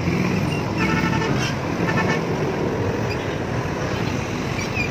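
Road and traffic noise heard from a moving Yamaha NMAX scooter in city traffic: a steady rumble of engines and tyres. A vehicle horn honks about a second in, then again briefly at about two seconds.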